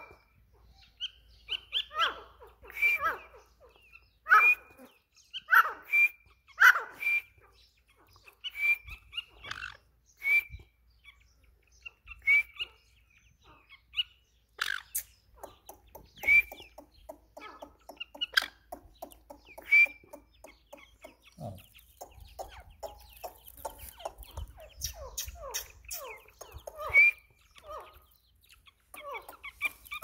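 Francolins (teetar) giving short, sharp calls again and again, a second or two apart, with fainter chattering in between. The calls come thickest in the first few seconds and more sparsely later.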